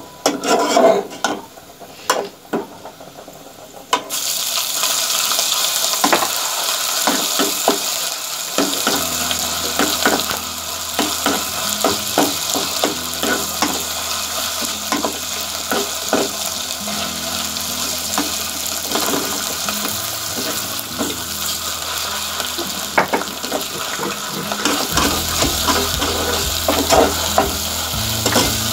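Sliced onions frying in oil in an aluminium pot, sizzling steadily, with a steel ladle stirring and clinking against the pot. The sizzle comes up suddenly and loud about four seconds in.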